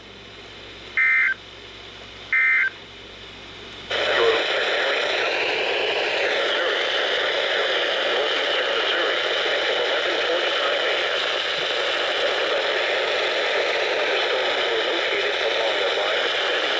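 EAS end-of-message data bursts from a NOAA Weather Radio broadcast: two short, identical two-tone digital bursts about a second and a half apart, closing the alert. About four seconds in, a steady radio static hiss starts and holds.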